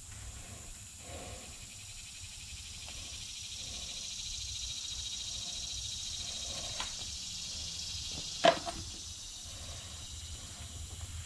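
A steady high hiss that swells through the middle, over a low hum, with a faint click and then one sharp knock about eight and a half seconds in.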